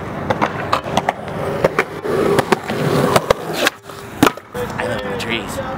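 Skateboard wheels rolling over concrete, with repeated clicks as they cross cracks and joints. A short lull is followed, about four seconds in, by one loud smack as the board pops or hits the ground during a trick.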